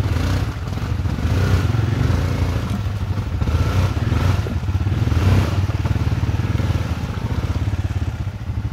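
Access Max 750 ATV engine running under load, revving up and easing off again and again as it works through deep mud.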